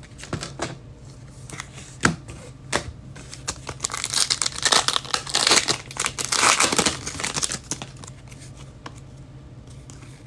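Trading-card pack wrapper being torn open and crinkled, a dense crackling stretch for a few seconds in the middle, with scattered light clicks of cards being handled before it.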